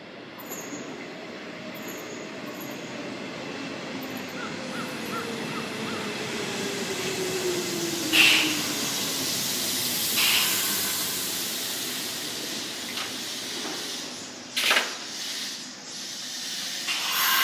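Nishitetsu 5000 series electric train pulling into the platform and slowing, its running noise carrying a tone that falls in pitch as it decelerates. There are short, sharp hisses of air from the brakes, the loudest about eight seconds in and more near the end.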